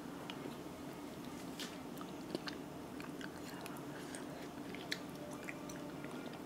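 Faint mouth sounds of eating hot nurungji (scorched-rice porridge): soft chewing with a few small scattered lip and tongue clicks, over a low steady hum.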